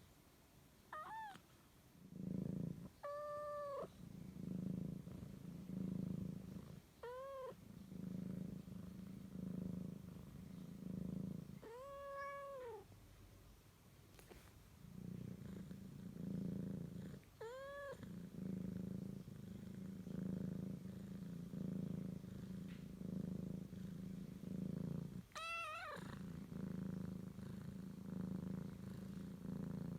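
British Shorthair cat purring in a low rumble that swells and fades with each breath as it drifts off to sleep. The purring is broken by six short meows, each rising then falling in pitch.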